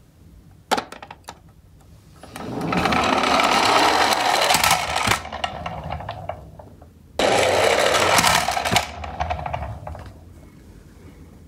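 Plastic toy garbage truck rolling across a hard wood-look floor, its wheels running with a rough whirr. There are two runs, one a little over two seconds in and a shorter one about seven seconds in, with a sharp click shortly before the first as the truck is set down.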